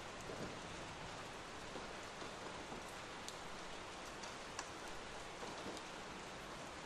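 Steady rain falling, an even hiss with scattered individual drops ticking now and then.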